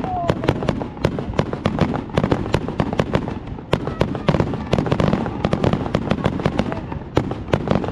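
Fireworks display bursting in rapid succession: several sharp bangs and crackles a second without a break, over a low rumble.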